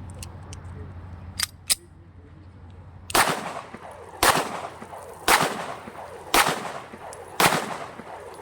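A 9mm Zigana Sports pistol fired in single shots: five sharp shots about a second apart, each followed by a short echo. Two light clicks come a couple of seconds before the first shot.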